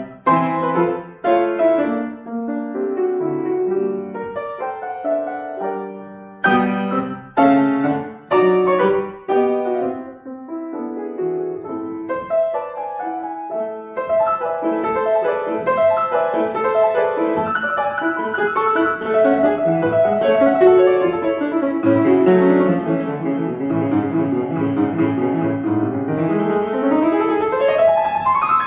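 Acoustic piano playing a classical piece. It opens with separate chords and short pauses, turns into a continuous flowing passage about halfway through, and ends with a fast rising run.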